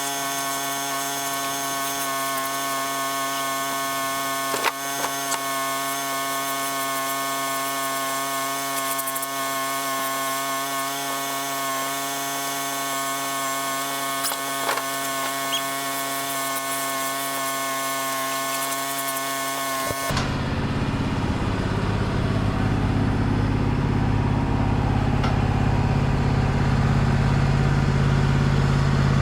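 Wood-Mizer portable band sawmill running steadily through a hickory log, an even high machine whine with a couple of short clicks. About twenty seconds in the whine cuts off abruptly and a lower, louder engine rumble takes over.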